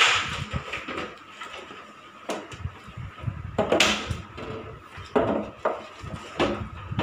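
A rubber flip-flop knocking and scuffing on a hard tiled floor as it is moved about, about five separate knocks, over a low rustle of handling.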